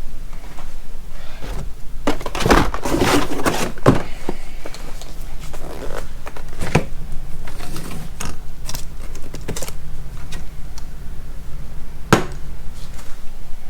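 Boxed tools and cardboard being handled and set down: rustling of packaging with scattered knocks and thunks, the sharpest one about twelve seconds in.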